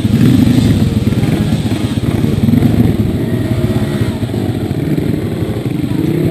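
Trail motorcycle engines running close by, their pitch rising and falling with the throttle.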